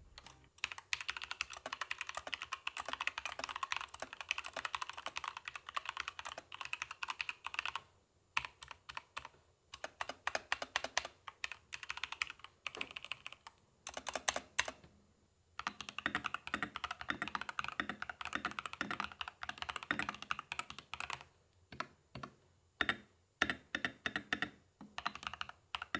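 Typing on two mechanical keyboards one after the other: a Keychron K2 with Gateron Red switches and an Epomaker TH80SE with Budgerigar switches. The typing comes in fast runs of key clicks broken by several short pauses. The owner hears the TH80SE, whose keycaps sit firmer on reinforced switch stems, as fuller and more solid, and the K2 as slightly rattly.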